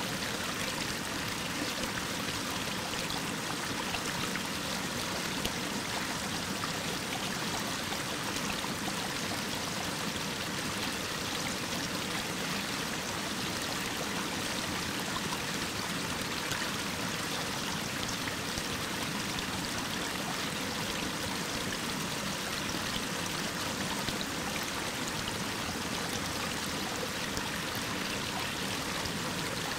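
Mountain stream rushing down a rocky waterfall: a steady, unbroken sound of falling water.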